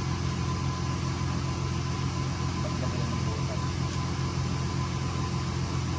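A fishing boat's engine running steadily at an even speed, a low unbroken hum with a faint high whine over it.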